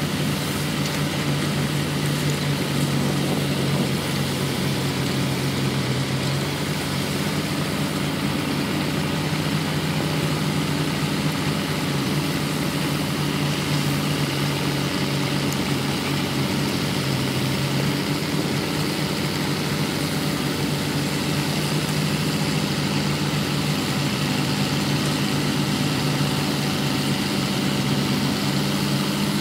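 Diesel engine of heavy construction machinery running steadily, a low hum with small shifts in engine speed now and then.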